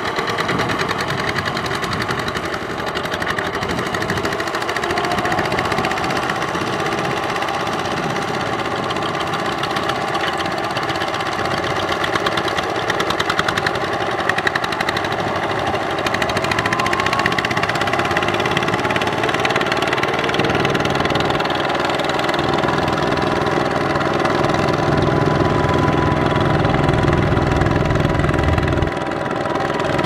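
Single-cylinder diesel engines of Kubota RT155 walking tractors (power tillers) running steadily under load while they plough flooded paddy mud. The engine sound grows louder and fuller about two-thirds of the way through, then drops off shortly before the end.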